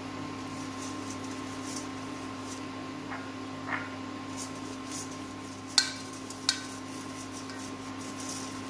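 Stainless steel kitchenware knocking lightly: a few faint clinks, then two sharp metal-on-metal clinks about six seconds in, over a steady low hum.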